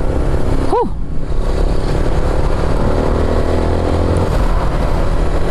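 Motorcycle engine running on the move, under a steady rush of wind noise on the microphone. About a second in there is a short tone that rises and falls.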